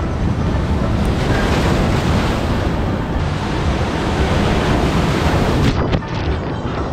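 Sea surf breaking against boulders and washing up a sandy beach, with wind buffeting the microphone. Just before the end a wave splashes over the microphone, and the sound suddenly turns dull.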